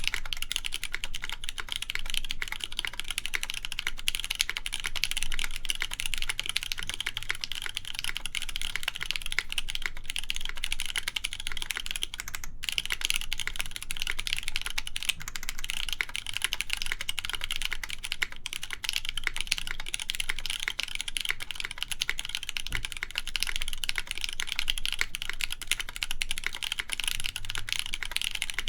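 Fast, continuous typing on a custom mechanical keyboard (Unagi prototype) with lubed Cherry MX Nixie (Black clear-top) linear switches, a polycarbonate plate and GMK keycaps: a dense stream of keystroke clacks, with a brief pause about twelve seconds in.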